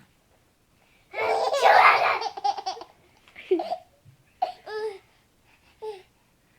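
A baby laughing hard: a loud, long run of pulsing belly laughter starting about a second in, then three shorter laughs that drop in pitch.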